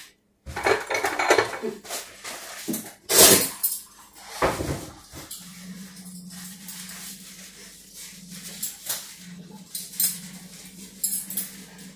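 Kitchen clatter: dishes and utensils knocking and clinking. A steady low hum starts about five seconds in.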